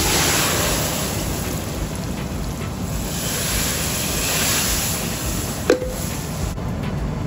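Hot oil tadka of fried onions, garlic and green and dried red chillies poured from a wok into a large pot of dal, sizzling loudly in two surges. Near the end comes a single sharp metal clank, all over a steady low rumble.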